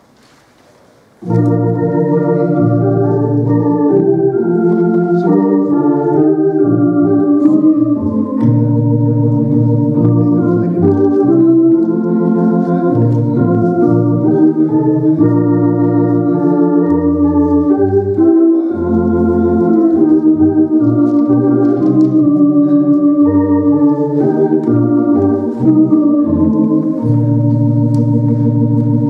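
Church organ playing the introduction to the opening hymn: held chords that come in suddenly about a second in and move through the tune.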